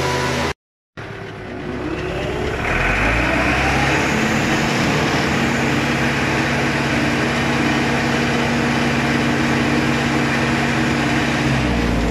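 Picus loader-mount round-bale straw chopper, hydraulically driven, spinning up with a rising whine just after a brief dropout, then running steadily. Near the end its steady tones stop as it is shut down and begins to wind down.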